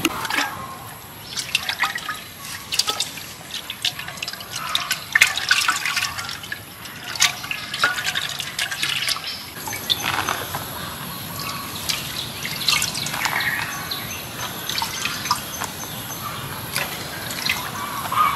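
Water splashed by hand from a clay pot onto a large banana leaf, splashing and dripping on the leaf in many irregular small splashes.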